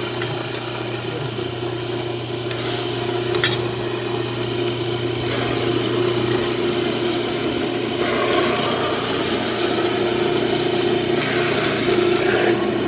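Electric millstone-type soybean grinder running with a steady motor hum and a grinding noise that swells and eases every few seconds. There is a sharp click about three and a half seconds in.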